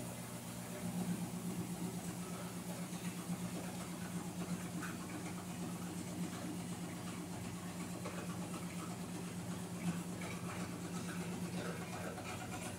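Top-loading washing machine running, with a steady motor hum and scattered light clicks and rattles.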